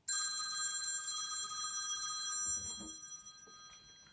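Mobile phone ringing with an incoming call: the ring starts suddenly, holds steady for about two and a half seconds, then fades away, with a soft knock from the phone being picked up partway through.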